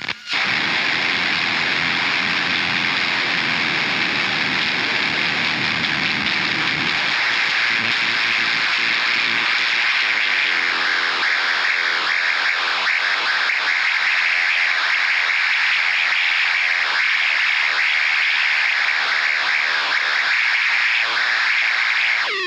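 Forcefield 2000 PLL electronic noise instrument putting out a steady, dense harsh-noise texture, its low end thinning out about seven seconds in.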